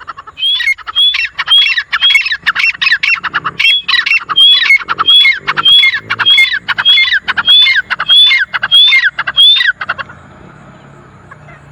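Several grey francolins calling together, harsh repeated rising notes overlapping at about two a second. The chorus stops abruptly about ten seconds in, leaving only a faint background hiss.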